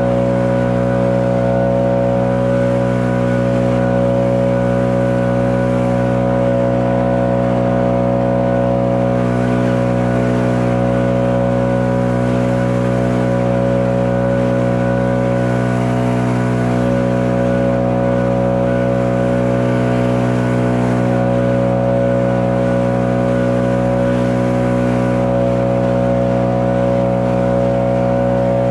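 Stihl BR 800 Magnum backpack blower's two-stroke engine running at a steady, unchanging speed while blowing wet snow.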